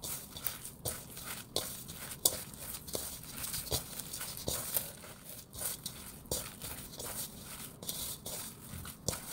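A hand mixing soft, wet dragon fruit bread dough in a stainless steel bowl: short irregular sticky squishes and taps, roughly two a second. The dough is still wet and sticky at this stage.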